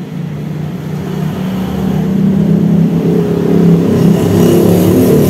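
A motor vehicle engine running close by, steadily growing louder over the first few seconds and then holding loud.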